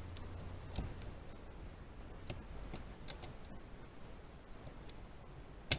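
Faint, scattered small clicks and ticks of hands working on wiring while splicing a wire, with one sharper click near the end.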